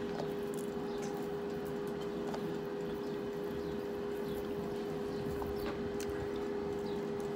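Soft, wet squishing and faint clicks of food being worked by hand and chewed, over a steady hum with one constant tone.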